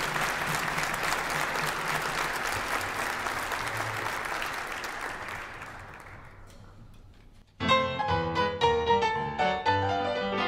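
Audience applause dying away over about seven seconds, then after a moment's quiet a Dixieland jazz band starts playing, piano notes prominent at the start.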